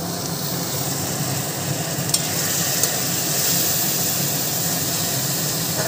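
Ground spices and fried onion sizzling in hot oil in an aluminium kadai just after a little water has been added, with a metal spatula stirring and scraping the pan. The steady hiss is broken by a couple of light clicks about two seconds in.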